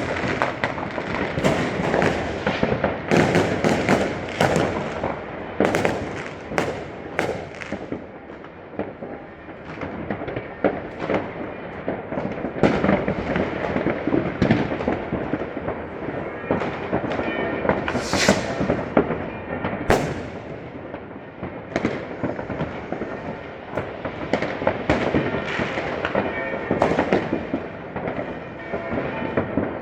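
Many fireworks and firecrackers going off at once: dense, overlapping bangs over a continuous crackle and rumble, with a few sharper, louder cracks about two-thirds of the way through.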